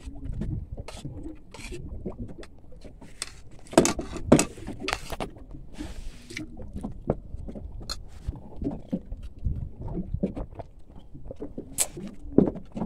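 Scattered clinks and scrapes of metal spoons on china plates as people eat, over a steady low rumble.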